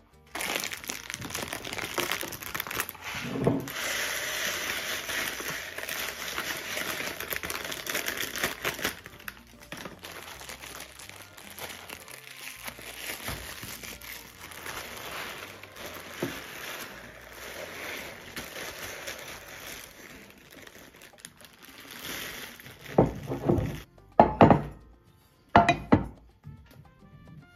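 Plastic bag of basmati rice crinkling as it is unclipped and handled, then rice poured into a glass measuring jug. Near the end come several loud clunks as non-stick pans are picked up and set down.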